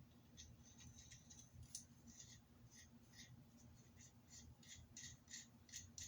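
Faint light metallic clicks and ticks, about two or three a second, from small pistol parts being handled: a threaded barrel and its thread protector.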